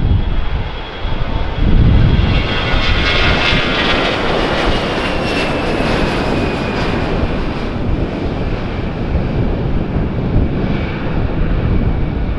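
Airbus A320-214's CFM56 jet engines at full takeoff (TOGA) thrust through the takeoff roll, liftoff and climb-out: loud, steady jet noise with a high fan whine that falls slowly in pitch a few seconds in.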